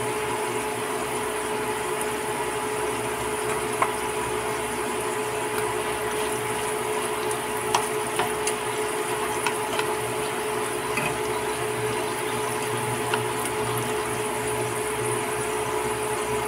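Breaded banana peel strips deep-frying in olive oil: a steady sizzle of bubbling oil with a few scattered sharp pops. A steady hum runs underneath.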